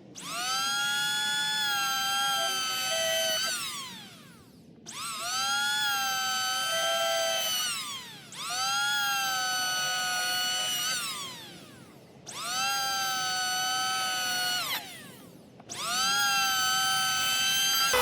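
WEN 6530 electric hand planer run five times in a row, once per pass. Each time the motor starts with a high whine that holds steady for about three seconds, then falls in pitch as the motor spins down after the trigger is released.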